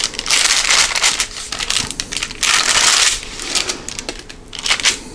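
Parchment paper on a baking sheet crinkling and rustling as a fork presses crisscross marks into balls of peanut butter cookie dough, in several separate rustles.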